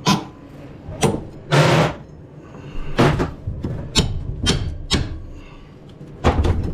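Hammer blows on wood, a series of sharp single strikes about a second apart, with a short rasping noise between the second and third.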